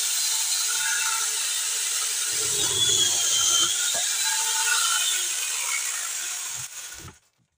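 Angle grinder fitted with a chainsaw bar-and-chain attachment running at high speed with a high whine, its chain sawing into wood, then it winds down and cuts off suddenly about seven seconds in.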